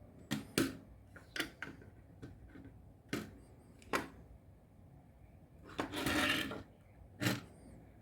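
Handling noise from repair work on a bench: a scatter of about seven sharp clicks and knocks, with a short rasping noise about six seconds in.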